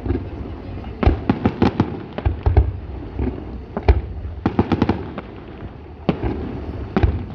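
Fireworks display: salute shells bursting in clusters of sharp bangs and cracks, with short lulls between volleys. The bangs come in clusters about a second in, around four to five seconds in, and near the end.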